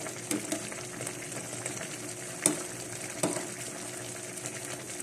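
Fried tilapia cooking in a frying pan of black-bean (tausi) sauce, the sauce giving a steady sizzle. A metal ladle clinks against the pan a few times as sauce is spooned over the fish.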